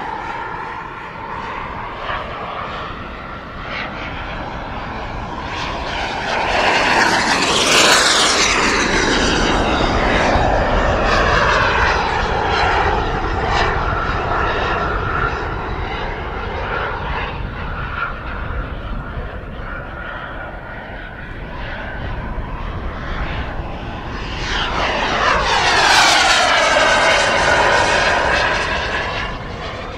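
JetCat P200 model jet turbine in a large radio-controlled Mirage 2000, flying past. The whine swells twice as the jet comes close, about a quarter of the way in and again near the end, and its pitch shifts as it passes.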